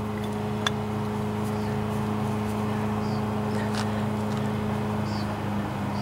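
Steady low machine hum, with a single short click about half a second in as a screwdriver works at a brass emulsion tube in a small-engine carburetor.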